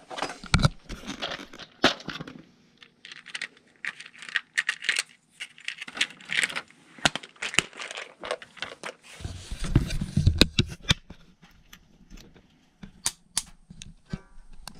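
Crinkling, tearing and clicking of hands at work as a furnace's failed hot surface igniter, which reads open, is removed and a new one fitted, with low rumbling handling knocks about nine seconds in.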